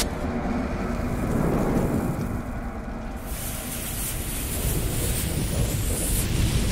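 Sound effect of a burning fuse and flames: a steady, noisy rumble, with a hiss joining in about three seconds in.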